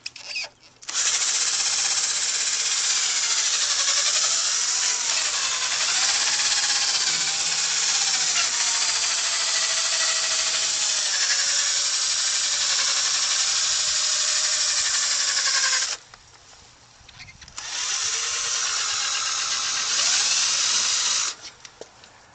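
Power drill spinning a foam polishing pad with compound against a plastic headlight lens. It runs for about fifteen seconds, stops briefly, then runs again for about four seconds, its pitch wavering as the pad is pressed and moved over the lens.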